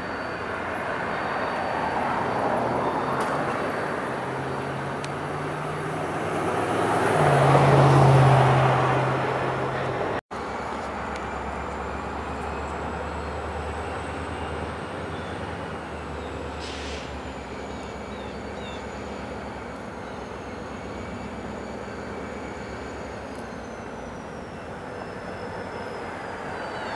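Diesel freight locomotive, an EMD GP40, moving under power: its engine note steps up and is loudest about eight seconds in. After a cut comes a steadier, lower rumble of the train rolling, with a faint high whine slowly dropping in pitch.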